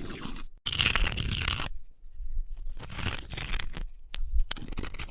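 Makeup being rubbed off skin with a remover: a run of close-up rubbing strokes, each about a second long, with short pauses between them.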